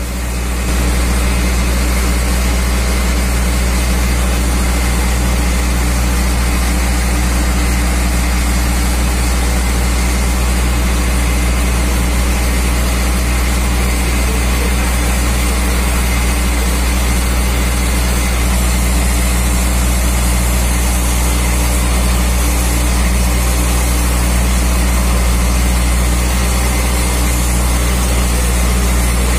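Heavy truck's diesel engine running steadily at a low, even speed while the truck-mounted hydraulic grab crane works.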